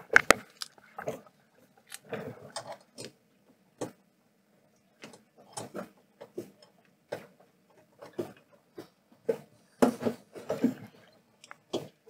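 Refrigerant gauge hose being connected by hand to an air conditioner's low-pressure service port: irregular clicks, taps and rubbing as the brass flare fitting is threaded on among the copper tubes and rubber hoses.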